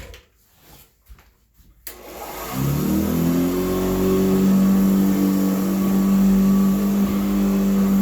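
Early-1950s Hoover Model 28 upright vacuum cleaner switched on about two seconds in. Its motor rises in pitch as it spins up, then runs steadily. The motor brushes are a little noisier than normal because the commutator is worn and no longer perfectly flat.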